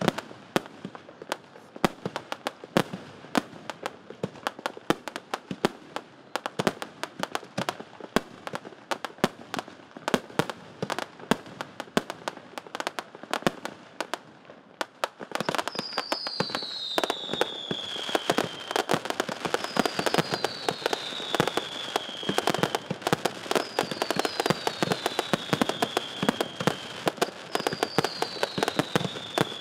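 Fireworks display: a rapid, dense barrage of bangs and crackling. About halfway in it grows louder and thicker, and falling whistles repeat about every four seconds.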